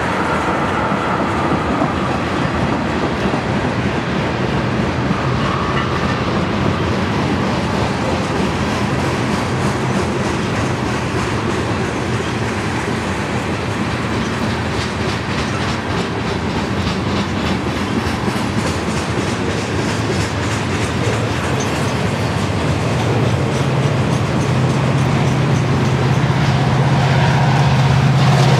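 Freight train cars, mostly tank cars, rolling past on steel rails: a steady rumble of wheels with rhythmic clickety-clack over the rail joints. In the last few seconds a low, steady diesel engine drone grows louder as a mid-train Union Pacific locomotive approaches.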